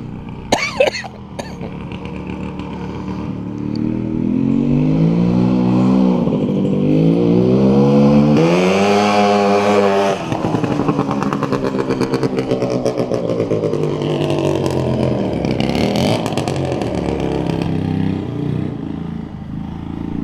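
Bombardier 440cc two-stroke snowmobile engine on a go-kart revving up and down as the kart is driven. Its pitch climbs highest about eight to ten seconds in and drops off suddenly, then it runs on with a fluttering, uneven sound.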